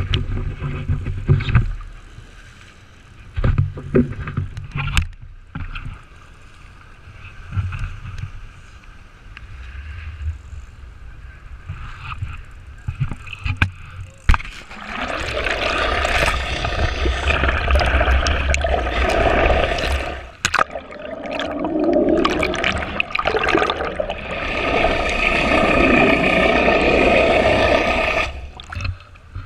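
Sounds of a sport-fishing boat at sea. At first come scattered knocks and rumbling wind on the microphone. From about halfway the rush of the boat's engines and water grows loud and steady, then drops away shortly before the end.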